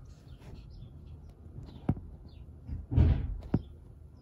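Handling noise as cards and a booster pack are moved about close to the microphone: a few light clicks and a louder thump about three seconds in.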